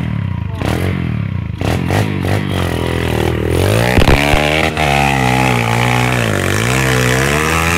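Pit bike engine revving hard through deep mud, its pitch rising and falling over and over as the throttle is worked. A few clattering knocks come in the first two seconds, before the engine swells up about three and a half seconds in.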